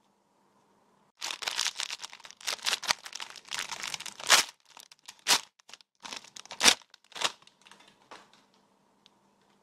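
Clear plastic packaging crinkling and rustling as a plush keychain is unwrapped. It starts about a second in, is densest for the next three seconds, then breaks into a few sharp single crackles and trails off near the end.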